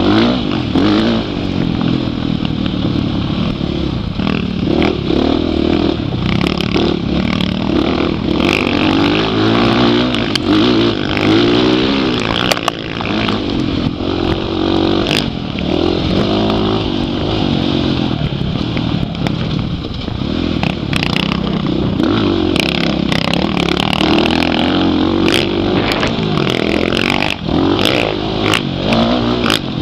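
Dirt bike engine revving hard and easing off again and again as the bike is ridden around a motocross track, heard close up from the rider's helmet. Scattered knocks and clatter from the bike over bumps.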